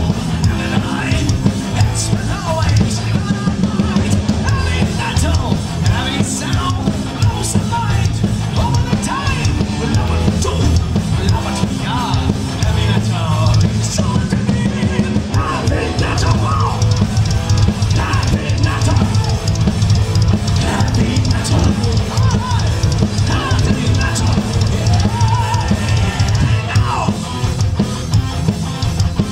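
Heavy metal band playing live: electric guitars and a drum kit, loud and continuous.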